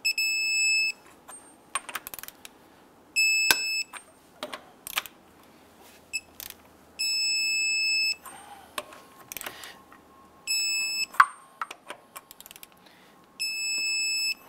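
Electronic torque wrench beeping five times, each a high steady beep of about a second or less, signalling that a lug nut has reached the set torque of 135 foot-pounds. Light metallic clicks and clinks of the socket and wrench come between the beeps.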